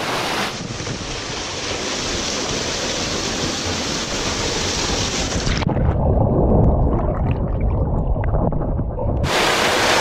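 Water splashing and rushing in a shallow stream pool as a swimmer goes in. About six seconds in the sound turns muffled and rumbling, heard from underwater, and about nine seconds in the open-air splashing returns.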